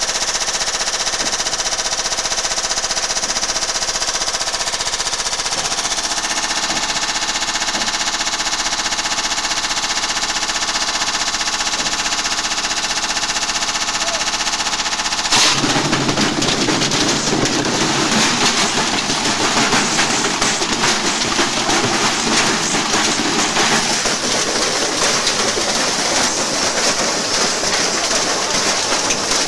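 Washing machine in a high-speed spin, its motor whining steadily over a fast, hammering rattle of the badly unbalanced drum. About halfway through the sound changes suddenly to a louder, harsher clattering and banging as the machine shakes itself apart.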